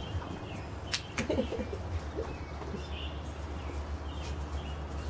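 Quiet outdoor background with a steady low hum, two sharp clicks about a second in, and just after them a brief low warbling call.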